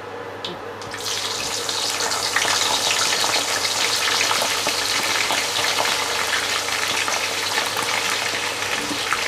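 Water-soaked aubergine wedges going into hot oil: the oil starts sizzling loudly about a second in and keeps up a dense, steady crackle as the wedges deep-fry.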